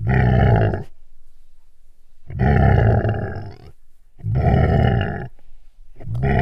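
A big cat giving four loud, drawn-out calls of about a second each, with short pauses between them. The pitch falls slightly within each call.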